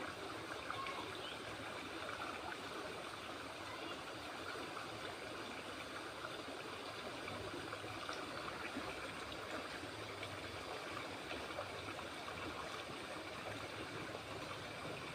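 Steady rush of flowing water from a stream, an even hiss with no distinct splashes.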